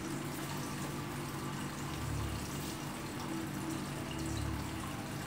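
Aquarium filter pump running: a steady rush of moving water over a low, constant hum.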